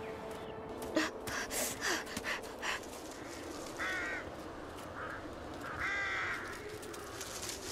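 Crow cawing: a quick run of short, harsh sounds in the first few seconds, then two longer caws about four and six seconds in.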